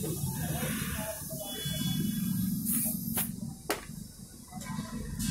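Compressed air hissing from an air hose while a bicycle tyre is inflated, with a few sharp clicks a little past halfway.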